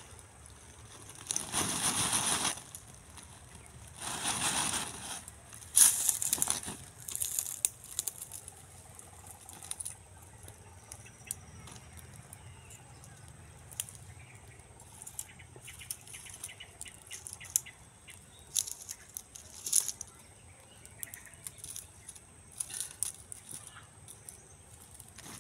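Rustling and crackling of leaves and undergrowth being handled and trodden, in several loud bursts over the first seven seconds, then scattered clicks and crackles.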